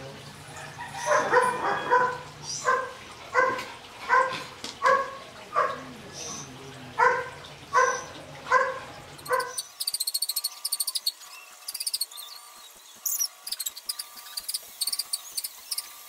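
A dog barking again and again, about one bark every three-quarters of a second, until about nine and a half seconds in. After that, rapid high-pitched chirping.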